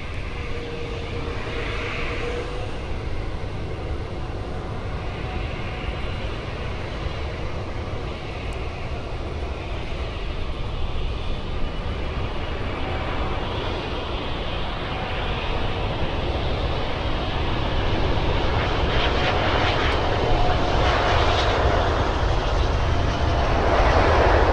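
Airbus A380 airliner's four jet engines on approach to land, a steady rumble growing louder as it comes closer, with a whine rising into it in the second half.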